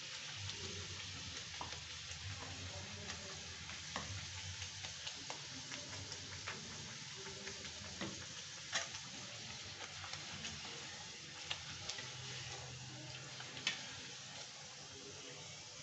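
A whole-wheat puri deep-frying in hot oil in a kadhai: a steady sizzle with scattered sharp pops and crackles, a few of them louder.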